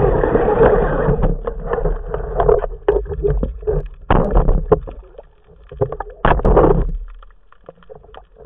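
Water churning and bubbling around an underwater camera housing during spearfishing, a steady rush at first, then irregular sharp knocks and short splashing bursts as the speargun shaft and its line are handled, fading out about seven seconds in.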